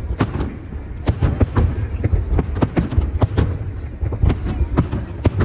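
Aerial fireworks display: a rapid series of sharp bangs from bursting shells, several a second, over a steady low rumble.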